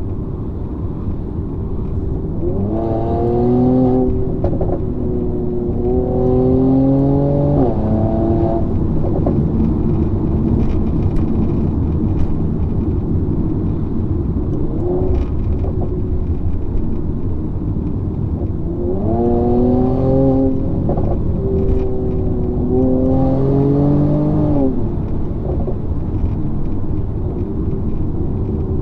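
Mercedes-AMG C43's twin-turbo V6 and performance exhaust heard from inside the cabin, accelerating hard twice: each time the revs climb, drop at a quick upshift and climb again. Steady road and tyre rumble runs underneath.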